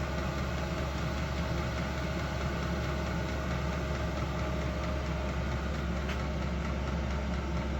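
Vevor-type Chinese diesel air heater running steadily just after start-up: a constant hum with a higher tone that fades out about five seconds in.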